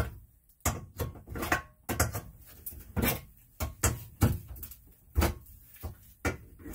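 Claw hammer prying up the edges of an old cast iron sink's metal rim ring: a series of irregular sharp metal knocks and clanks.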